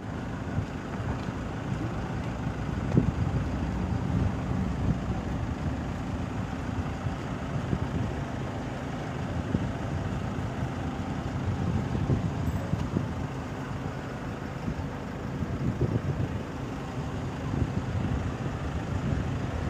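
Roadside outdoor ambience: a steady low rumble with irregular low thumps and no distinct event.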